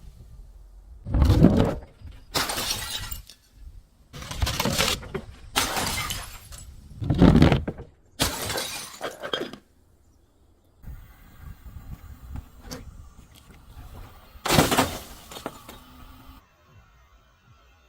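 Glass bottles shattering one after another: about six sharp crashes in the first nine seconds, a quieter stretch, then one more crash near the end.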